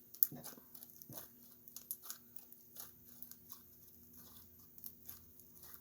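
Freshly activated slime being kneaded and squeezed by hand, giving faint, irregular sticky clicks and crackles.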